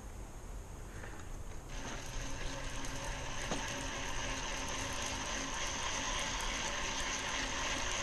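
A fishing reel's ratchet buzzing steadily, starting about two seconds in, as a hooked salmon pulls line off it.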